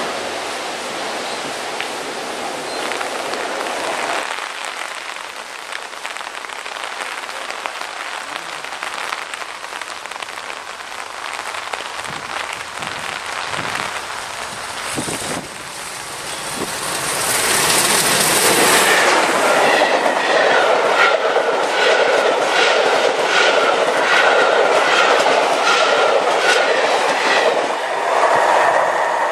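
Steam-hauled train passing over a level crossing: the sound builds as the locomotive arrives with a brief hiss, then the carriage wheels clatter over the crossing rail joints in a steady, even rhythm.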